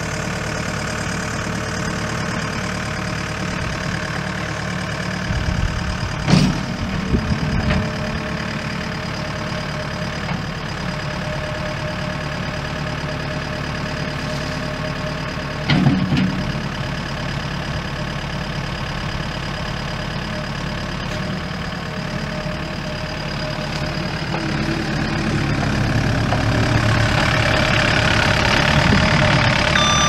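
Case four-cylinder diesel engine of a skid steer idling steadily, with two short clunks about six and sixteen seconds in; the engine grows louder over the last several seconds.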